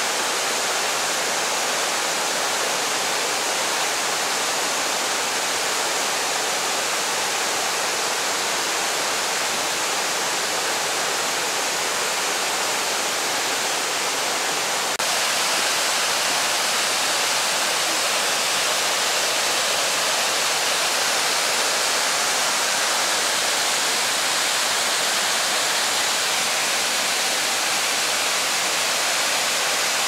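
Sable Falls, a tiered waterfall pouring over rock ledges, making a steady rushing roar of falling water. It gets a little louder and brighter about halfway through.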